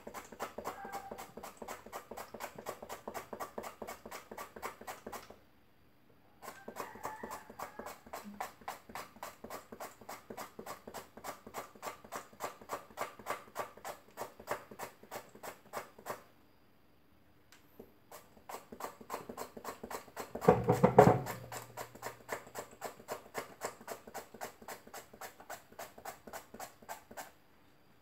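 A turnip being slid over a plastic hand-held mandoline slicer into a steel bowl: quick, even slicing strokes at about four a second, in three runs with two short pauses. A short, louder sound cuts in briefly about two-thirds of the way through.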